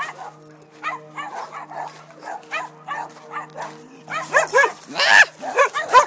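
Dogs in kennel pens barking and yipping in quick, overlapping calls, growing louder and more frequent about four seconds in. A steady low hum sits underneath at first.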